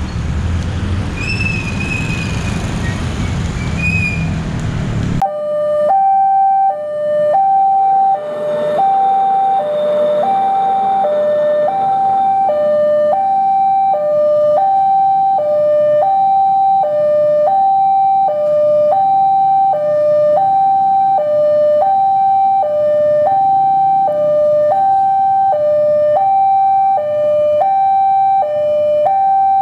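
Street traffic noise, then from about five seconds in a railway level-crossing warning alarm: two electronic tones alternating high and low, about one note a second, steady and loud. It sounds while the crossing barriers are down for an approaching train.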